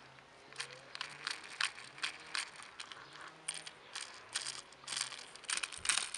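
Irregular crinkling and small clicks of plastic being handled, as toy train pieces are taken out of their packaging.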